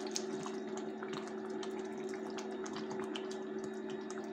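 Chicken in tomato gravy simmering in a pan, bubbling with many small scattered pops, over a steady low hum.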